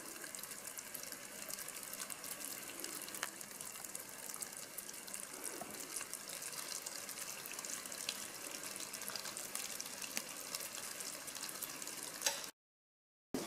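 Sugar syrup boiling hard in a saucepan, a steady bubbling hiss dotted with fine crackles, as it nears its target of about 122 °C for marshmallow. It cuts off suddenly near the end.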